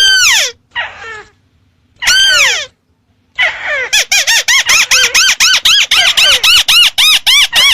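Ruddy-breasted crake ('tikusan merah') lure calls: sharp, high, arched notes that rise and then drop. A few single calls with gaps between them are followed, about halfway in, by a fast even series of about five notes a second.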